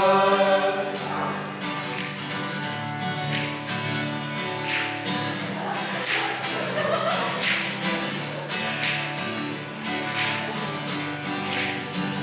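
Acoustic guitar strumming chords in an instrumental break, with a stronger accented stroke about every second and a half. A held sung note fades out at the start, and soft singing is heard faintly partway through.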